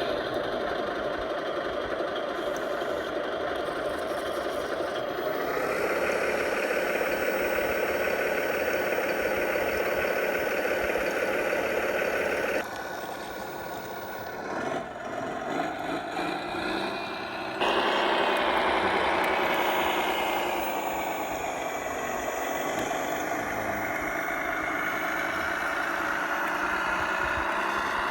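A radio-controlled micro-hydraulic model wheel excavator at work, its hydraulic pump and motor running with a steady hum. The pitch and loudness step up about five seconds in, drop sharply midway, jump up again a few seconds later, then slowly sink as the load changes.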